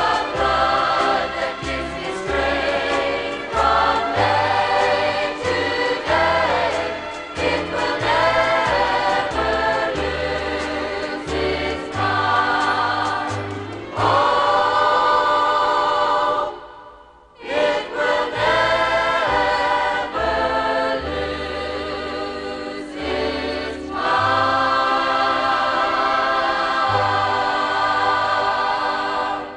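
Choir singing a gospel song over instrumental accompaniment with a bass line moving note by note. The music drops out briefly about halfway through, then comes back, and it stops near the end.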